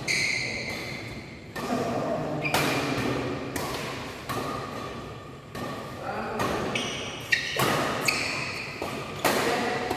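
Badminton rally: a shuttlecock struck back and forth with rackets, sharp hits coming roughly once a second at an uneven pace, each echoing and ringing briefly in the hall.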